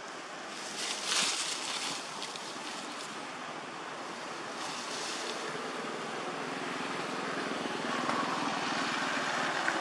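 Steady outdoor background noise with a wind-like hiss. It swells briefly about a second in and again around five seconds, then grows louder near the end.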